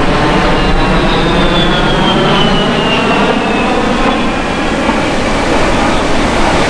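A-10 Thunderbolt II's twin TF34 turbofan engines, loud and steady overhead, with a high fan whine that falls in pitch over the first few seconds.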